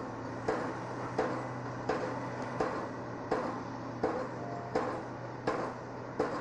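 Sharp knocks repeating at a steady, even pace, about three every two seconds, over a steady low hum.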